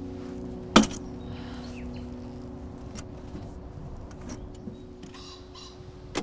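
An old green metal box being handled in grass: a sharp knock just under a second in, then light clicks and rustling. A low chord of background music is held underneath.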